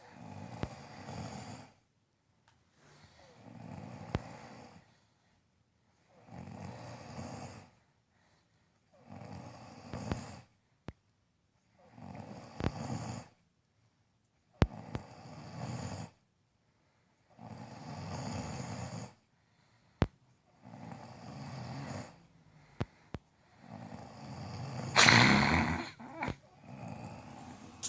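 Loud snoring, one snore about every three seconds, the loudest one near the end, with a few faint sharp clicks in between.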